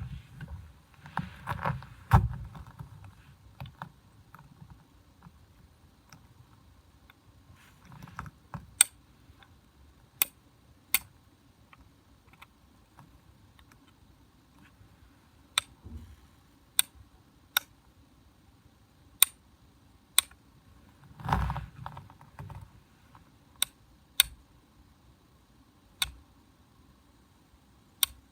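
Flint struck against a fire steel to throw sparks: a dozen or so sharp, bright clicks at irregular intervals, mostly a second or more apart, with handling rustles near the start and again about two-thirds of the way through.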